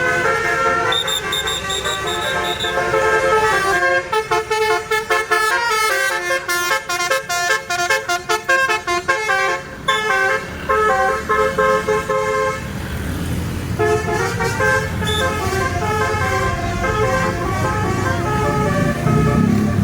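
Bus 'telolet basuri' multi-trumpet musical air horn playing a tune of stepping notes, with a run of quick staccato notes in the middle. From about two-thirds of the way in, a bus engine rumbles under the horn.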